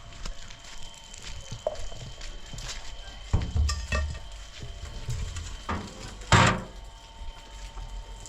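Scattered knocks and thuds at an uneven pace over a low rumble, with a louder clatter a little after six seconds in and a heavy thump a little past three seconds.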